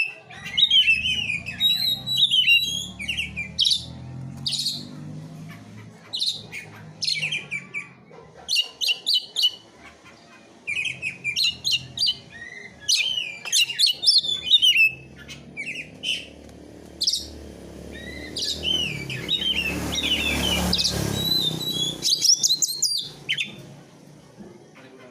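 Songbird masteran recording: rapid, high chirps and warbled trilling phrases in quick bursts, with a low rumble underneath and a brief rush of noise about three-quarters of the way through.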